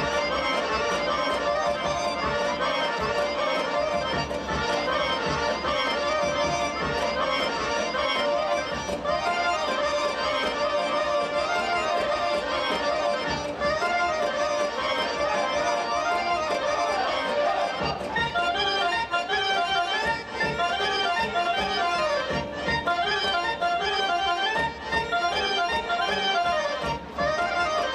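Macedonian folk dance music led by accordion over a steady, driving rhythm. From about 18 seconds in, a quick, ornamented melody line comes to the fore.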